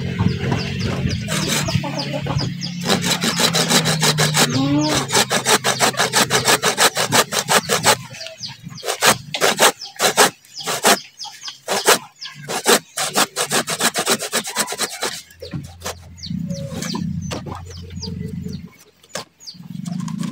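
Small hand saw cutting through a living sancang (Premna) bonsai trunk in rapid back-and-forth strokes. The strokes come fast and even at first, then slower and more uneven, and stop a few seconds before the end as the top of the trunk comes free.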